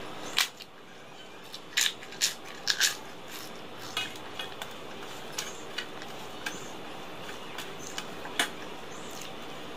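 Fingers and rings clinking and scraping against a stainless steel plate as rice is mixed by hand: sharp clinks, several close together in the first three seconds and one more near the end, over a steady background hiss.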